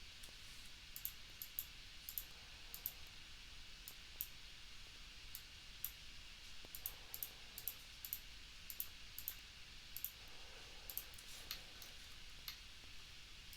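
Irregular clicking of a computer mouse and keyboard, about two clicks a second, some in quick pairs, over a faint steady hiss.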